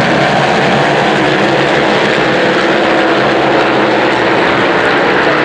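Several racing superbikes running hard past the spectator bank. Their engines blend into a steady drone, with tones sliding slowly up and down as the bikes brake and accelerate through the bend.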